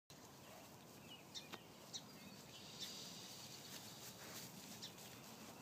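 Faint open-field ambience with distant birds chirping now and then and a few soft ticks.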